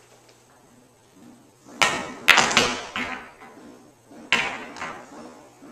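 Pool balls clacking and knocking on a pool table: a quick run of sharp hits about two seconds in, then a second, shorter pair of hits near the end.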